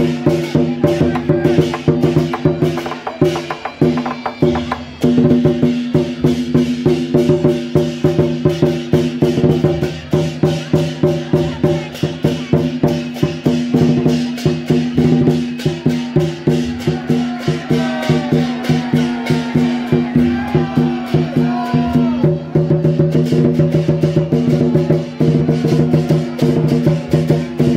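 Temple procession music: a fast, steady wood-block and drum beat, about three to four strokes a second, over several long held tones.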